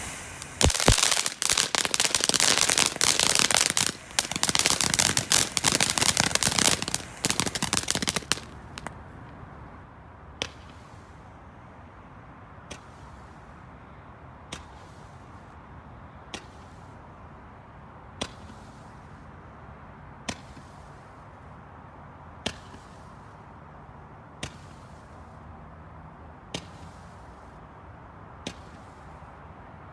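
Consumer fireworks going off. There are about eight seconds of loud, dense crackling, then single sharp pops roughly every two seconds, ten in all.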